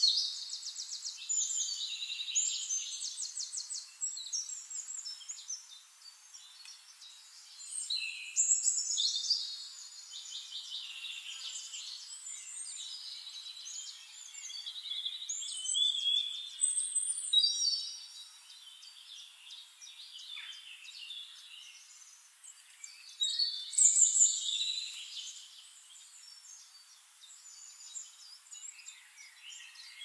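Songbirds singing in bursts every few seconds, rapid high trills and chirps, the loudest phrases near the start, about eight seconds in, around sixteen seconds in and about twenty-four seconds in.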